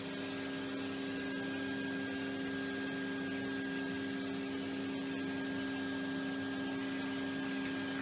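Numatic Henry vacuum cleaner running on its low setting: a steady motor hum with a few unchanging whining tones over a soft rush of air.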